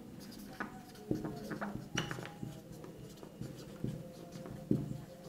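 Marker pen writing on a whiteboard: faint, irregular scratches and taps of the tip on the board.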